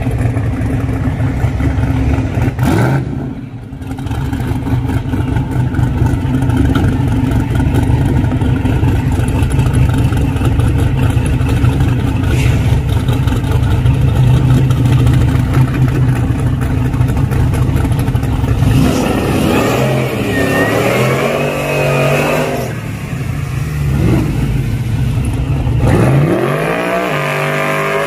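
A drag-racing pickup truck's engine runs with a loud steady rumble, then revs up and down repeatedly from about two-thirds of the way through. Near the end it climbs in a steep rising rev as the truck spins its tyres in a smoky burnout.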